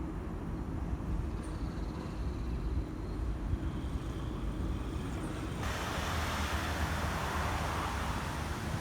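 Urban street traffic noise: a steady low rumble of vehicles. About two-thirds of the way through, it jumps suddenly to a louder hiss, like a cut to a busier stretch of road.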